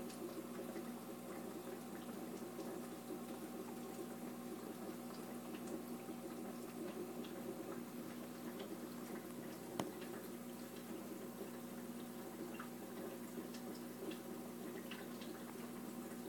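Aquarium sponge filter bubbling steadily, with a stream of air bubbles giving scattered small ticks and pops over a steady low hum. One sharper click comes about ten seconds in.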